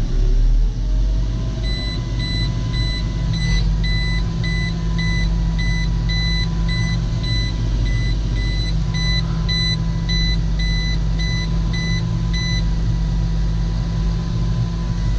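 Tractor-driven Claas 3300 big baler running with the PTO engaged at 1000, a steady low mechanical drone as the baler turns over to warm its gearbox oils. An electronic warning beeper sounds about twice a second for roughly eleven seconds, starting shortly after the start and stopping a few seconds before the end.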